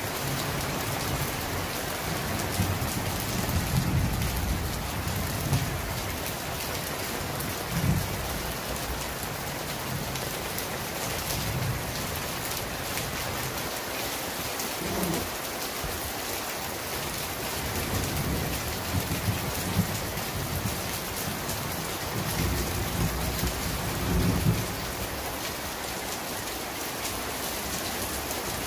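Heavy rain pouring steadily in a downpour, with low rumbles of thunder coming and going several times.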